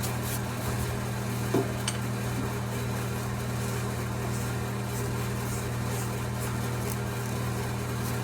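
Steady low mechanical hum, with a couple of light clicks about one and a half and two seconds in.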